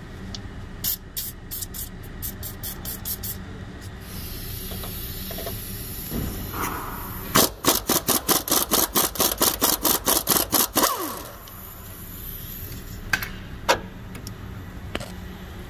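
An aerosol can of penetrating oil rattles as it is shaken, with light quick clicks, then hisses for a couple of seconds as it sprays. After that comes a quick run of loud clicking strokes, about five a second for some three seconds, as a wrench tool works the rusted bracket nut loose.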